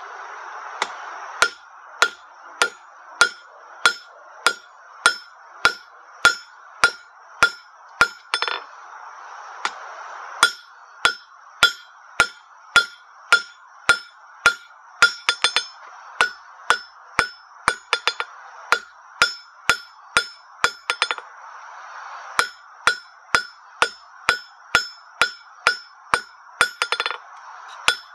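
Blacksmith's hand hammer striking hot square bar stock on an anvil in a steady rhythm of about one and a half blows a second, each blow followed by the anvil's ring. The bar end is being rounded into the bell's striker. The hammering stops briefly twice.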